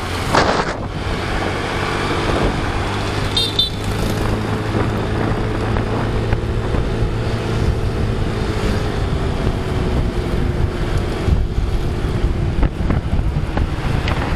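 Motorcycle engine running steadily while riding in traffic, with road noise and wind buffeting the microphone.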